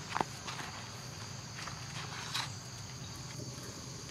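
Steady high-pitched buzzing of an insect chorus, crickets or cicadas, with a short falling squeak near the start and a brief scuff about two seconds in.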